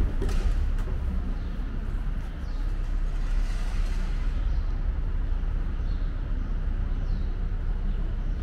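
Steady city traffic rumble, with a vehicle swelling past about three seconds in.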